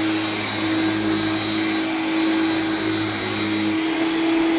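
Hoover Turbopower 2 U2090 vacuum cleaner running steadily, a motor whine over a low hum. About four seconds in the low hum drops away and the whine gets slightly louder.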